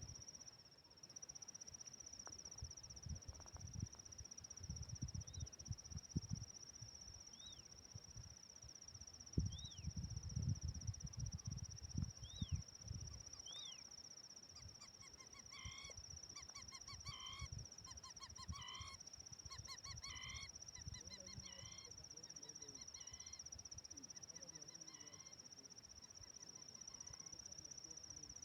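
A steady, high-pitched insect drone, over which a bird gives short chirps every second or two in the first half, followed by a run of repeated honking calls, several a second, in the second half. Low rumbles sound on the microphone now and then.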